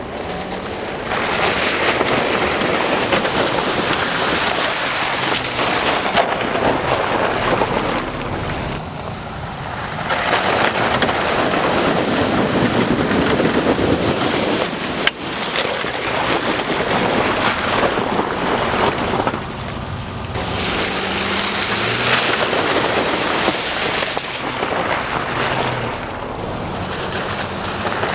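Off-road vehicle driving a muddy trail, heard as a loud rushing noise that swells for several seconds at a time, three times, with quieter dips between.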